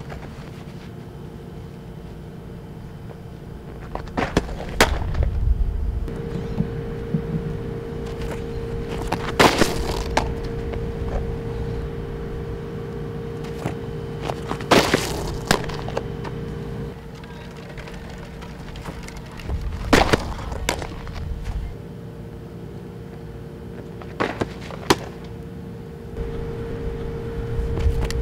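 Softball pitches popping into a catcher's mitt: a sharp pop roughly every five seconds, some followed by a second, lighter knock, over a steady hum.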